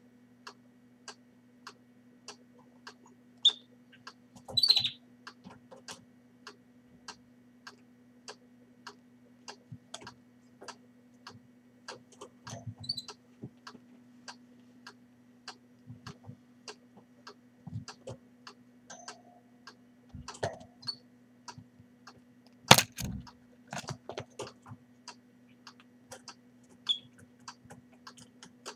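Steady ticking about twice a second over a low hum, with a few short, high peeps from a Fife Fancy canary nest holding a newly hatched chick, and one sharp click a little past the middle.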